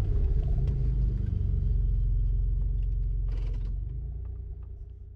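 4x4 off-road vehicle's engine running at low revs, heard from inside the cab as a steady low rumble that fades away near the end.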